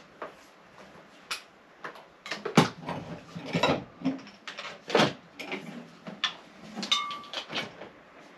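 Irregular knocks and clacks with some rustling in between, loudest around the middle.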